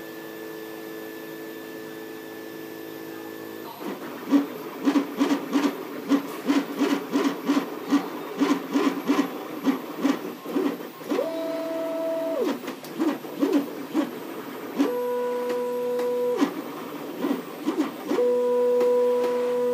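MakerBot Replicator Mini 3D printer's stepper motors running mid-print. A steady hum at first, then from about four seconds in quick back-and-forth moves at about three a second. These are broken by a few longer whining tones, each gliding up in pitch as it starts and down as it stops.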